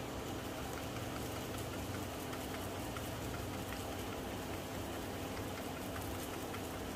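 Beef and broccoli stems simmering in liquid in a frying pan: a steady bubbling hiss with faint tiny pops, over a faint steady hum.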